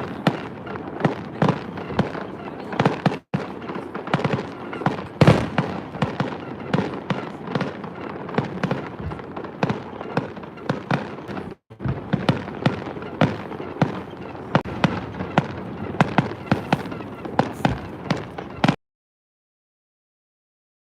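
Fireworks going off: a dense string of bangs, pops and crackles in quick succession, cutting off abruptly near the end.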